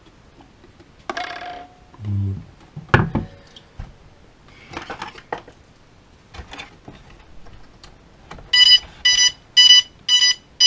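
Handling knocks and rustles of a plastic DJI Phantom FC40 quadcopter and its cardboard packaging. Near the end, electronic beeping starts, about two beeps a second, as the drone kit is powered up.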